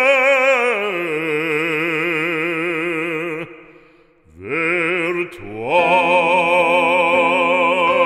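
Operatic solo voice singing long held notes with wide vibrato: it steps down to a lower note about a second in, fades out around four seconds, then slides up into a new sustained note.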